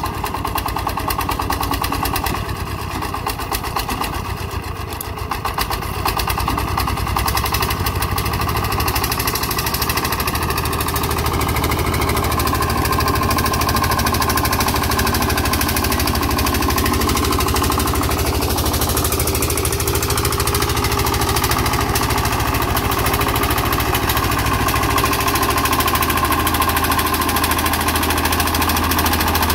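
Single-cylinder diesel engine of a công nông two-wheel tractor running steadily with a rapid, even knock, getting louder about six seconds in.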